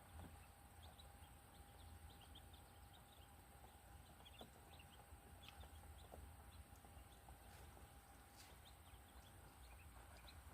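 Faint, high-pitched peeping of baby birds: many tiny, very short cheeps scattered irregularly throughout, with a faint steady hum underneath.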